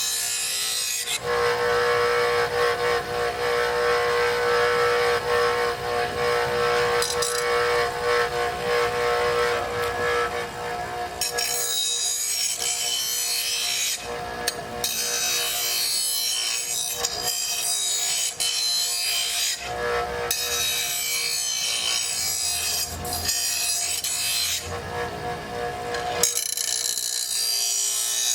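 Electric grinder running with a steady whine while a dull steel mower blade is ground against it to put on a new edge. The grinding hiss comes and goes several times as the blade is pressed in and eased off.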